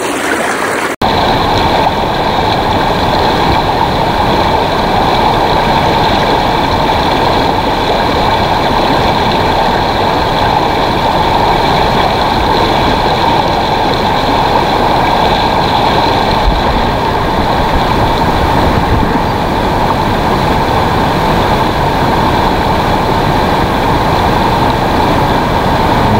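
Loud, steady rush of fast river rapids close around the microphone, the current breaking around a wader's legs and landing net. The sound cuts in abruptly about a second in.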